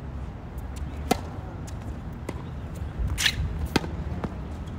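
Tennis racket strikes on the ball in a rally on a hard court. There is a sharp pop of the second serve about a second in, a faint return from the far end, then a slice backhand near the end, with a brief scuff just before it. A steady low rumble runs underneath.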